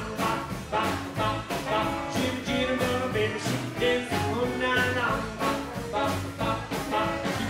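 Live rockabilly band playing with a steady beat: a man singing lead over acoustic and electric guitars, upright double bass and a drum kit.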